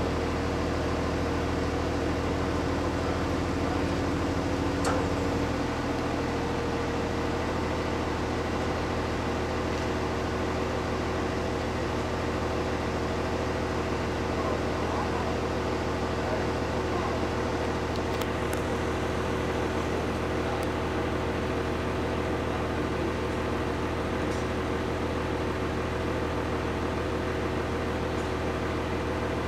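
Engine of the crane hoisting a tower-crane mast section, running steadily with a low drone. One of its tones falls away about five seconds in.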